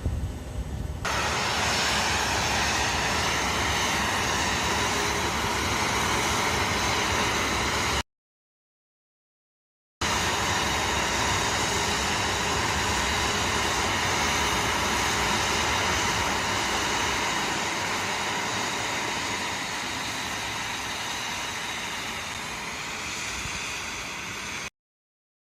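Jet airliner's engines running: a steady rushing noise with a faint high whine, fading slowly near the end and broken by two spells of dead silence.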